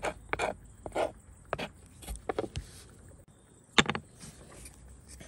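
Irregular small clicks, taps and short crunching scrapes, with one sharper knock just under four seconds in.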